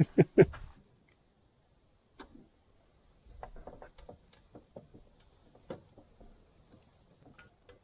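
Faint, irregular metallic clicks of a hand tool on a long extension working a fitting deep in the engine bay, tightening the refitted bottom coolant hose. The clicks come a few a second and start about three seconds in.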